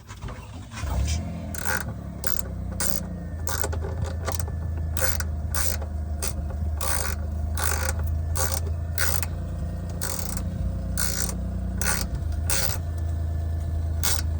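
Hand ratchet with an 11 mm socket clicking in repeated short strokes, working a nut on the battery cable, over a steady low hum.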